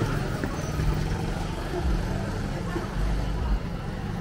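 Night street ambience: a motor vehicle's engine running nearby, with a low uneven rumble and voices in the background.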